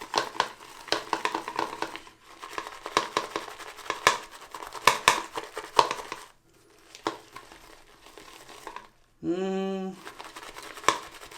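Synthetic shaving brush being worked around a bowl of shaving soap, a run of quick, wet, crackling strokes as the lather is agitated to thicken it. A little after nine seconds there is a brief hummed note from a person.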